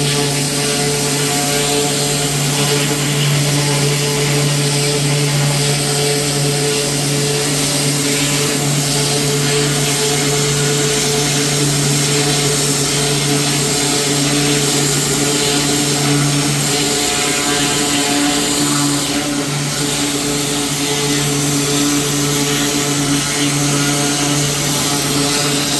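Small gasoline engine on outdoor cleaning equipment running steadily at constant speed, a drone with a loud hiss of spray or air over it.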